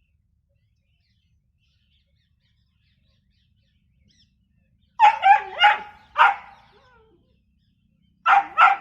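A dog barking: four quick barks about five seconds in, then two more near the end.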